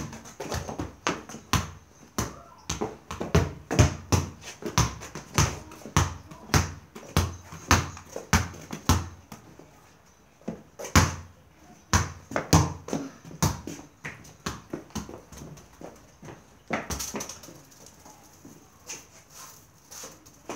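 A football being struck and bouncing again and again: a run of thuds at uneven spacing, several a second at times, growing sparser over the last few seconds.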